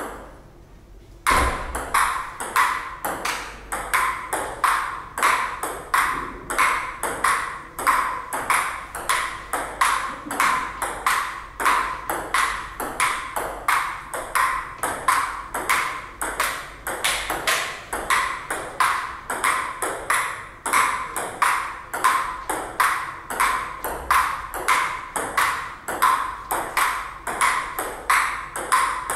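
Table tennis ball clicking back and forth in a long unbroken rally: sharp paddle hits and table bounces at about three a second, starting about a second in.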